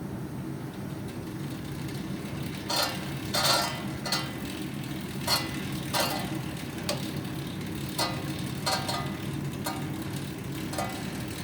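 Titan air fan exercise bike being pedaled: a steady low whir from the fan, and from about three seconds in a recurring sharp click or scrape, irregular but roughly once every second or less. This is the noise the brand-new bike makes while pedaling.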